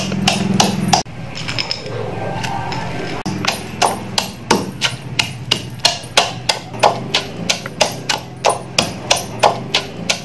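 Wooden pestle pounding freshwater crabs in a clay mortar, about two to three strokes a second, as the crabs are crushed into a paste for soup. The pounding pauses for about two seconds, a second in, then resumes.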